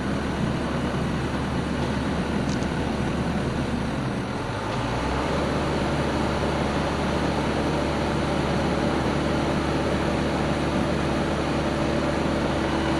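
Diesel engine of a Sany SY75C excavator running steadily. About four seconds in, its note dips briefly and changes, and then a steady whine comes in and grows louder near the end.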